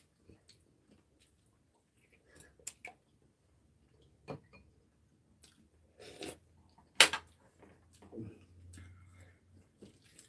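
Eating at the table: scattered clicks of a metal spoon and chopsticks against ceramic bowls, with quiet chewing between. The sharpest, loudest click comes about seven seconds in.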